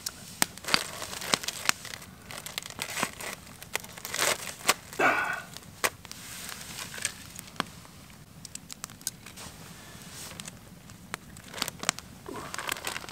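Plastic food bag crinkling and rustling as it is cut and pulled open with scissors, over the scattered sharp pops of a crackling campfire.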